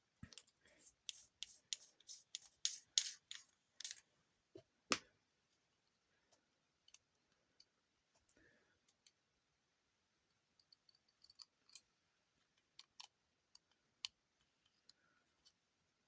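Light clicks and taps from small objects being handled, a quick run of them in the first five seconds, then scattered single clicks.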